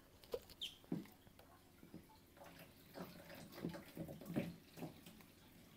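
Aquarium water being siphoned through a hose into a canister, with faint, irregular little gurgles and splashes.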